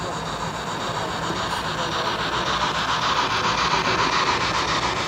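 Model freight train, a steam locomotive hauling hopper cars, rolling past on the track: a steady rolling rush with a fast, even clatter from the wheels, loudest about three to four seconds in as the cars pass closest.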